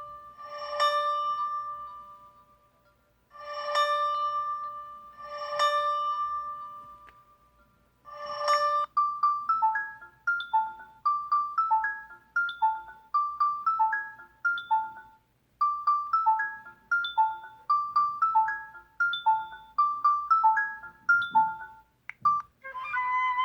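LG Prada 3.0 mobile phone ringtones playing. It opens with a few bell-like chime notes that ring out slowly. From about eight seconds in comes a quick chiming melody of short notes. A different ringtone begins near the end.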